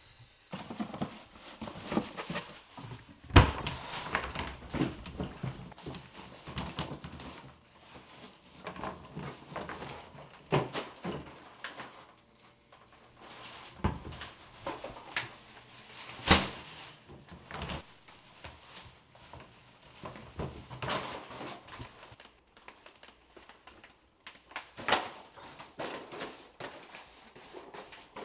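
Household handling noises: a string of knocks, clunks and thuds from cupboard doors and a plastic trash can, with rustling of a plastic trash bag between them. The two loudest are sharp knocks about three seconds in and about sixteen seconds in.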